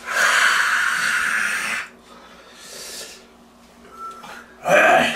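A man blowing out a long, loud, hissing breath through his wide-open mouth, followed about a second later by a second, quieter breath: he is trying to cool a mouth burning from very hot chili sauce. A voice starts near the end.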